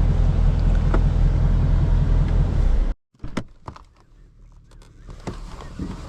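Chevrolet Camaro engine running with a steady low rumble, which cuts off abruptly about three seconds in. After that, a much quieter background with a few scattered clicks and knocks.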